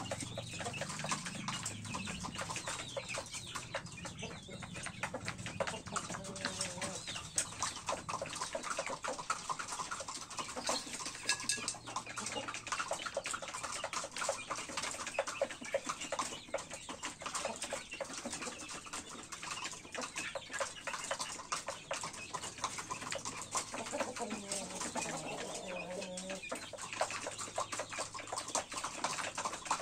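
Chickens in a coop, hens and chicks together, clucking, with dense small clicks and scratching throughout. A bending call comes about three-quarters of the way through.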